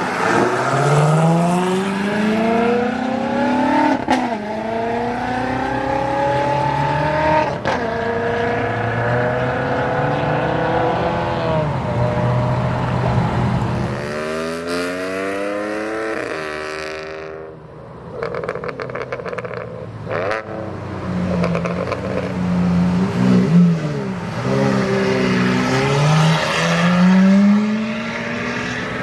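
High-performance sports car engines accelerating hard, the engine note climbing in pitch and dropping sharply at each upshift every few seconds. A little over halfway through the sound fades briefly, then another car's engine revs up and accelerates.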